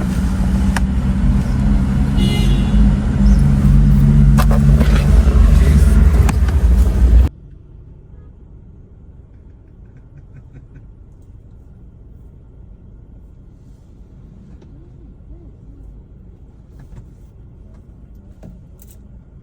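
A motor vehicle running with a loud, steady low rumble that cuts off abruptly about seven seconds in, leaving quiet background with a few faint ticks.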